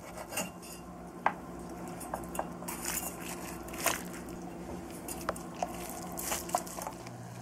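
Large kitchen knife and carving fork cutting up a roasted chicken on a wooden cutting board: scattered sharp clicks and taps as the blade meets the board and the fork knocks against it, over a steady low hum.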